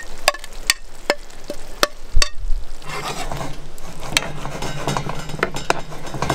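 A utensil stirring a simmering cream sauce with corn and peppers in a pan, clicking against the pan about twice a second for the first couple of seconds and then more irregularly, over a sizzle.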